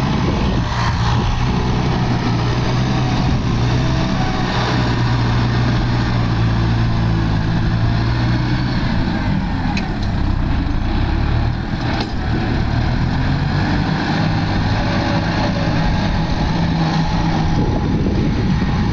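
Kubota MU5501 tractor's four-cylinder diesel engine running steadily under load as it pushes soil to level a field, its pitch shifting slightly about halfway through.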